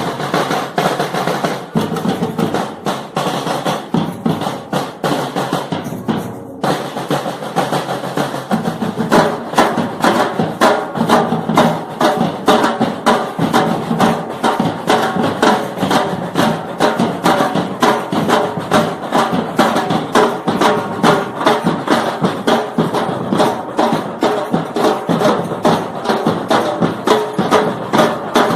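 A percussion group plays drums in a fast, steady beat, with a short break about six seconds in before the rhythm picks up again.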